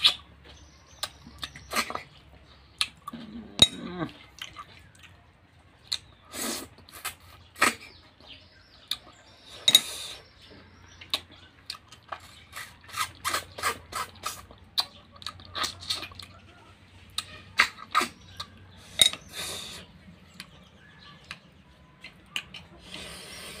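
Close-up eating sounds: irregular wet smacking and sucking at the lips as curried snails are sucked from their shells, with light clicks of shells and fingers against a metal bowl.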